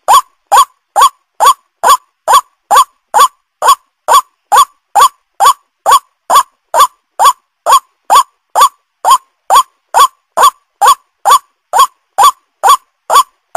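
White-breasted waterhen (ruak-ruak) calling: short clipped notes repeated evenly, about two and a half a second, each with a quick downward hook in pitch. This is the bird's lure call, used by trappers to draw the birds in.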